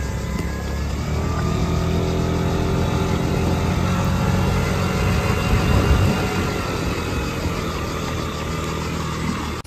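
Low-powered rental scooter's engine running steadily while being ridden along.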